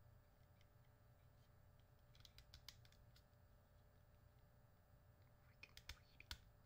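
Near silence with faint clicks and taps of small plastic parts handled in the fingers, as a small FPV camera and its accessories are fitted together: a cluster of clicks about two seconds in and another near the end.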